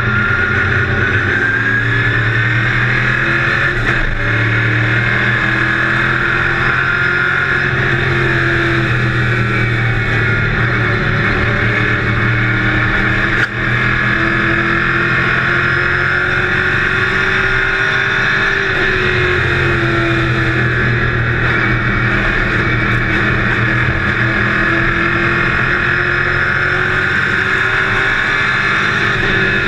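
Race car engine heard from inside the cockpit, running hard at racing speed, its note rising and falling gently through the turns of the oval. A single sharp click comes about halfway through.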